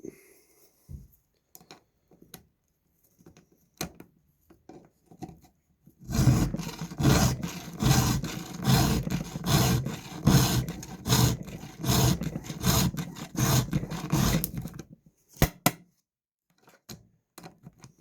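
Hand file rasping on chainsaw chain teeth: a quick run of repeated filing strokes for about nine seconds, after a few light handling clicks and before a couple of sharp clicks.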